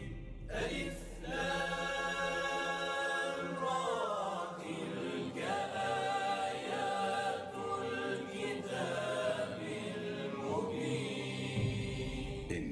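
Slow vocal chanting with long held notes that bend and glide, over a low steady drone.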